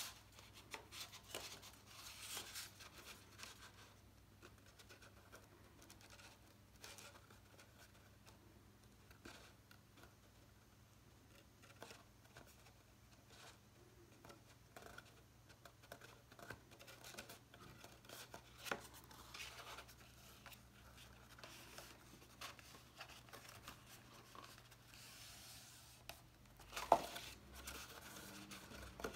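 Faint rustling and rubbing of glued cardstock being handled and pressed together by hand, with scattered light taps and one sharper tap near the end.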